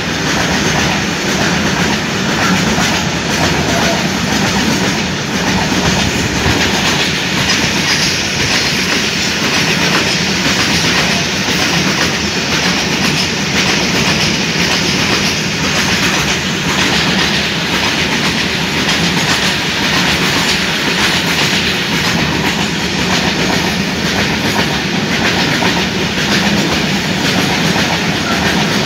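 Loaded steel-coil freight wagons rolling past close by, their wheels on the rails making a steady, loud rolling clatter.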